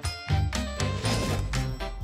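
Background music with a rhythmic bass line of short stepped notes.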